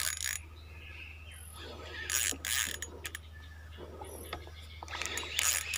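Small ultralight spinning reel cranked in short bursts, its gears clicking as it winds in line against a hooked barramundi; bursts come about two seconds in and again near the end, over a steady low hum.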